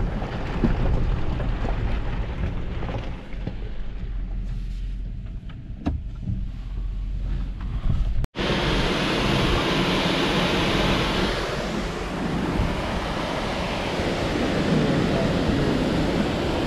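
Toyota Sequoia climbing a steep rocky dirt trail: a steady low engine and tyre rumble with a few sharp knocks. About eight seconds in it cuts off abruptly, and a loud, steady rushing noise follows.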